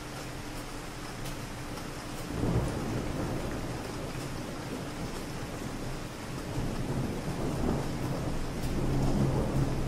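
Steady rain falling, with distant thunder rumbling in low: a swell about two and a half seconds in, and a longer build toward the end.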